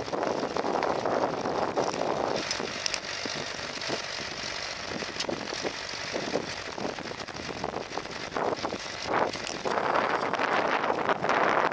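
International B-275 tractor engine running under load while pulling a mounted plough through the soil, louder near the start and again near the end.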